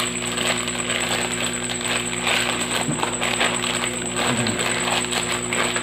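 Plastic parcel packaging rustling and crinkling as it is handled and opened, over a steady low electrical hum and a faint high whine.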